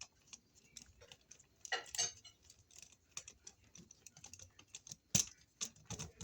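Small irregular metal clicks and scrapes of a screwdriver and a bare copper ground wire being worked onto a wall outlet's green ground screw, with a couple of louder clicks about two and five seconds in.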